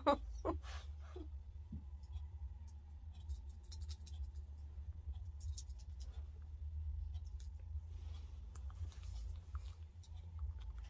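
Faint rubbing and scattered light clicks of a hand petting a Chihuahua at close range, over a steady low rumble, with a few short sharp sounds in the first second or so.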